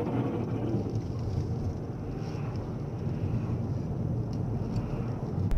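Steady road and engine rumble of a car cruising on a highway, heard from a dashcam inside the car, with some wind noise. It cuts off abruptly near the end.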